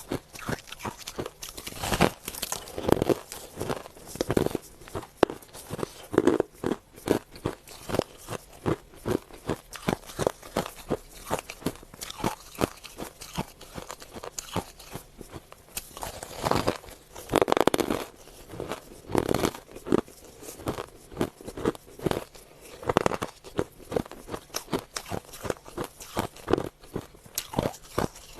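Hard ice being bitten and chewed close to the microphone: a dense, irregular run of sharp crunches and cracks, with louder clusters of crunching now and then.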